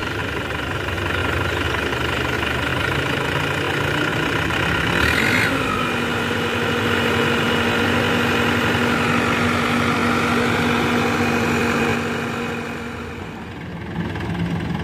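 Diesel tractor engine running while it pulls a trolley heaped with sand. The revs rise about five seconds in and then hold steady, and the engine dips in level near the end.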